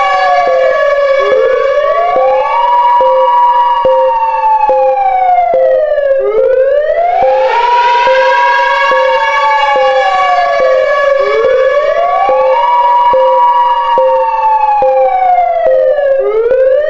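Civil defence air-raid siren wailing, its pitch rising, holding and falling over and over about every five seconds, with a steady pulsing tone beneath it: an air-attack warning.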